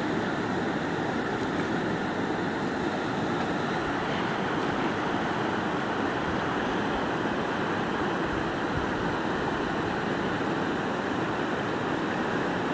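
Fast-flowing river running over rocks and rapids: a steady, even rush of water.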